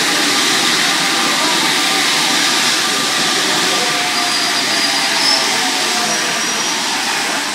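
MP89 rubber-tyred Paris Metro train pulling out of the station: a steady rush of running noise with faint whining tones from its traction motors, easing slightly toward the end as the last car passes.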